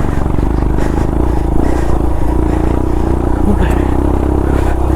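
Motorcycle engine running steadily as the bike is ridden up an off-road dirt trail.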